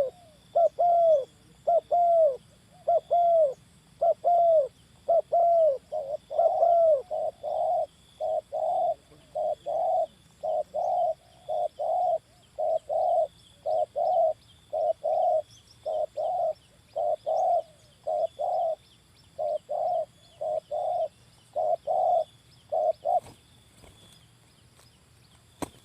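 Spotted dove cooing: a long run of short, hollow coos repeated about twice a second, stopping abruptly about 23 seconds in.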